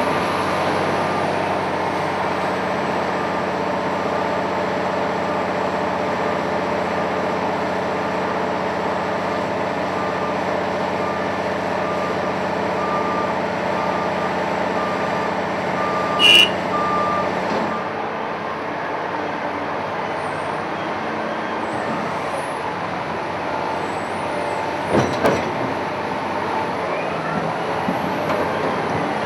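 A Caterpillar 992K wheel loader's big diesel engine running under load, with its reversing alarm beeping steadily about once a second for the first half as the machine backs up. The beeping stops and the engine settles lower about seventeen seconds in. There is a short sharp burst of sound just before that, and two sharp knocks about twenty-five seconds in.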